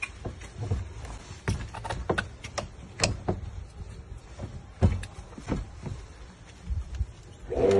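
Electro-hydraulic breaching tool's small electric motor running as its jaws force a wooden door away from the frame at the lock, with irregular cracks and knocks from the door and frame under the strain.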